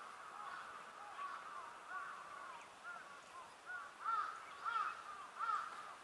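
Japanese grosbeaks calling: many short, arched call notes overlapping at several pitches, with the strongest calls coming from about four seconds in.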